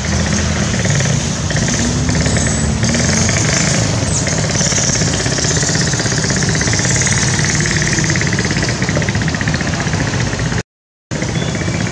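Loud steady outdoor background noise: a rapid, machine-like pulsing buzz over a low engine-like rumble. It cuts out briefly near the end.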